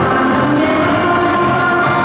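A children's song with singing plays over PA loudspeakers.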